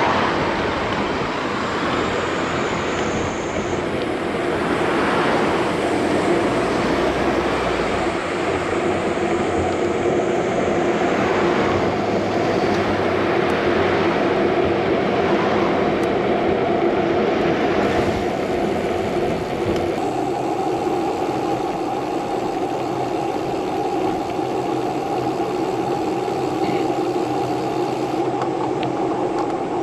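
Steady vehicle running noise: a droning hum over a rushing noise, stepping up slightly in pitch about two-thirds of the way through.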